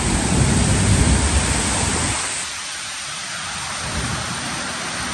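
Heavy rain pouring in a windy storm, a steady hiss, with a low rumble over the first two seconds or so that then fades.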